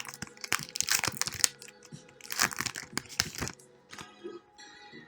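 Foil booster-pack wrapper crinkling and tearing open in three bursts of crackle over the first three and a half seconds, then faint background music.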